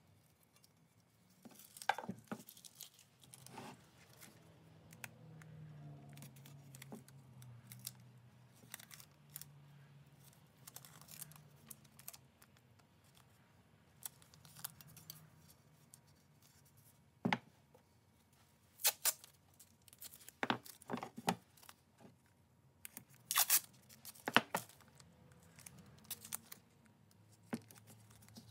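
Yellow painter's tape being pulled off the roll and torn in short rips, with crinkling as it is pressed and wrapped around a shovel handle; the loudest rips come in the second half.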